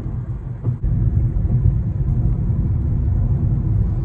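Car cabin rumble while driving: steady low road and engine noise, getting louder about a second in.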